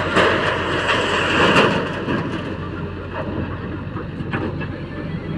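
Heavy diesel engine running steadily, with a loud rushing noise over the first two seconds and a couple of faint knocks later.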